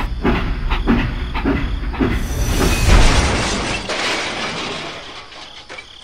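Toy steam locomotive's chugging train sound, with puffs coming a little under twice a second over a low rumble. About three seconds in it swells into a louder hissing rush, which then fades away.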